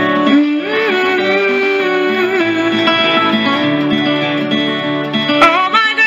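Country song's instrumental break: a lead guitar plays a melody with bent, sliding notes over the backing band.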